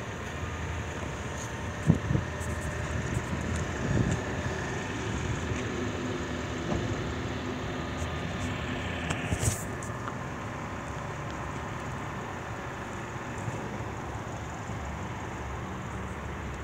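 A steady mechanical hum with some outdoor noise, broken by a few short thuds about two and four seconds in.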